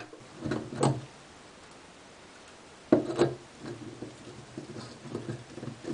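Faint irregular plastic clicks and scrapes of a plastic-chrome shower head being hand-threaded onto a shower-arm adapter's half-inch male thread, with the thread not catching cleanly. Two short low vocal sounds break in, one under a second in and one at about three seconds.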